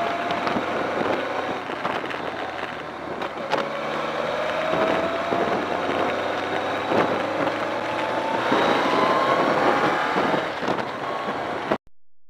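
BMW K1200R Sport's inline-four engine accelerating on a wet road, with a steady hiss of wind and spray around it. The engine note climbs, drops about three and a half seconds in, then climbs again. The sound cuts off suddenly near the end.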